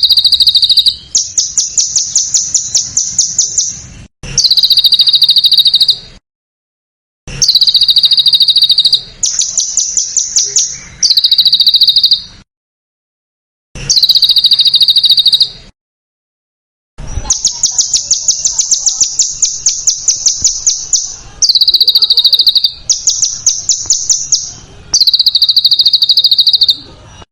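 A small songbird's harsh, very rapid trills, recorded for bird-song training. Each phrase lasts a second or two and jumps back and forth between a higher and a lower pitch. The phrases are separated by abrupt dead-silent gaps where the recording has been edited.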